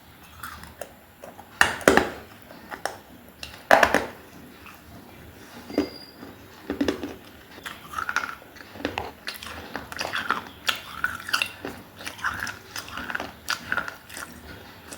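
Close-up bites and crunching chews of baked clay, pieces of an earthen diya lamp. Two loud cracking bites come in the first four seconds, then a steady run of gritty crunching as the clay is chewed.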